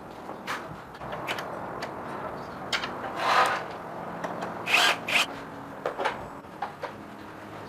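Hand-tool work during a motorcycle repair: scattered clicks and knocks, with two or three short scraping strokes about three to five seconds in.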